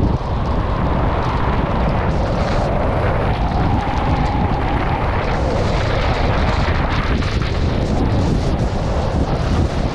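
Wind buffeting a GoPro 9's microphone during a fast ski descent at about 60 km/h, a loud steady rushing, mixed with the hiss and scrape of Head Kore 117 skis running over packed, tracked snow.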